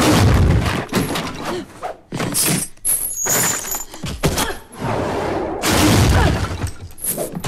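Film fight sound effects: a rapid run of crashes, heavy thuds and breaking wood and debris, with short metallic clinks and rings from a steel chain.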